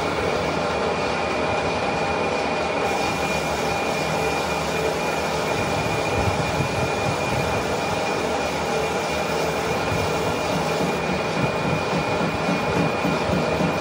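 Manual metal lathe running and cutting: a steady high whine over a mechanical rumble and hiss. The hiss grows brighter about three seconds in.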